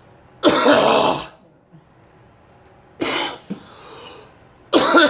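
A person coughing hard three times: one long cough, then two shorter ones. It is a chesty cough, trying to bring up phlegm that will not come up.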